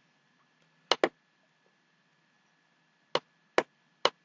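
Computer mouse clicking: a quick double click about a second in, then three single clicks about half a second apart near the end.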